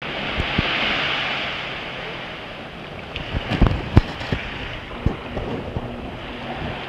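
Wind buffeting the microphone over the wash of small waves on a beach, with several sharp knocks a few seconds in, the loudest about four seconds in.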